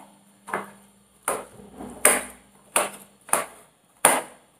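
Steel spoon clinking and scraping against a stainless steel plate as it presses into soft roasted brinjal: about six sharp clinks, roughly one every three-quarters of a second.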